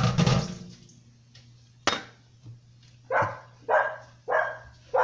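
A dog barking: a louder call at the start, then a quick run of short barks about every half second in the second half. A sharp click sounds about two seconds in.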